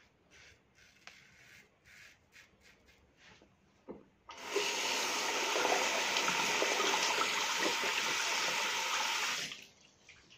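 Double-edge safety razor scraping through lathered stubble in several short, faint strokes. Then a tap runs loudly into the basin for about five seconds and is shut off.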